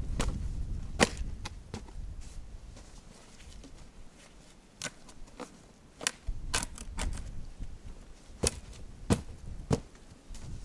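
Irregular sharp knocks and cracks, about a dozen, as debris and metal are worked loose by hand from a hole in snowy ground; a low rumble in the first two seconds.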